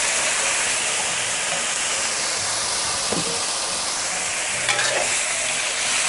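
Pork and red curry paste sizzling in a hot aluminium wok just after a splash of water has gone in, a steady hiss. A few scrapes of the spatula against the wok come in the second half.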